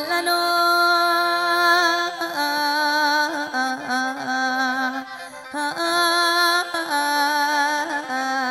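Khaen, the Lao-Isan bamboo free-reed mouth organ, playing an instrumental melody over steady drone notes, the tune stepping between held notes. It thins out briefly about five seconds in, then picks up again.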